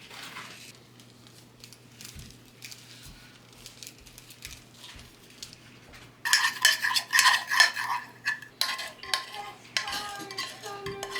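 Dishes and metal cutlery clinking and clattering: scattered light taps at first, then from about six seconds in a louder run of ringing clatter.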